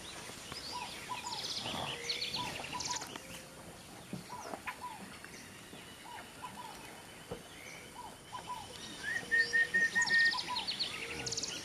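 Dawn bird chorus: many birds repeating short chirps, with fast high trills over them. About nine seconds in comes a run of five short, even whistled notes, the loudest part.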